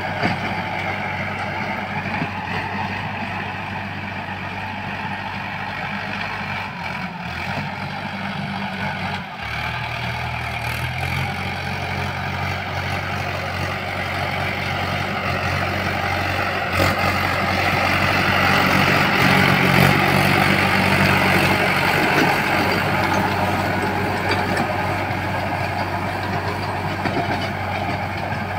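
Swaraj tractor's diesel engine running steadily under load while its Shaktiman rotavator churns the soil, the engine note shifting pitch about ten seconds in and the churning growing louder a little past the middle.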